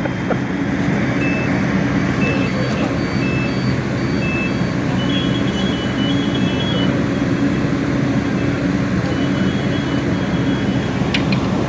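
Steady low rumble of a running vehicle engine. Over it, short high electronic beeps repeat on and off, a few every second, from about a second in until near the end.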